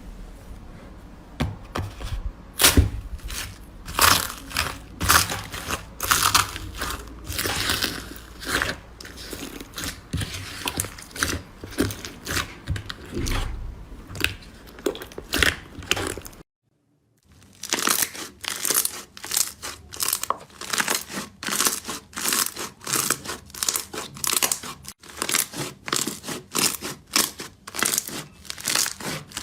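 Slime being squeezed and poked by hand, giving a dense run of crackling pops and clicks. It breaks off just after halfway, and after a brief silence another run of slime crackles follows in quicker, more even pops, about three a second.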